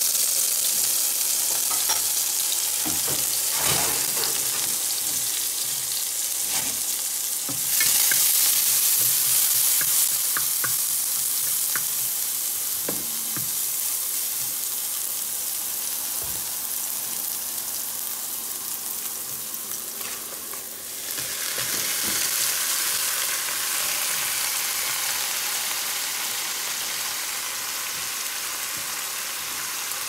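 Chopped garlic and green pepper sizzling in hot oil in a wok as they are stirred, with occasional sharp clicks against the pan. The sizzle gets louder about eight seconds in, dips briefly around twenty seconds, then picks up again.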